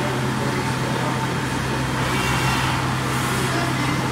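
1999 HAAS VF-4 vertical machining center running under power with its spindle turning, a steady low machine hum. A brief hiss swells up about halfway through.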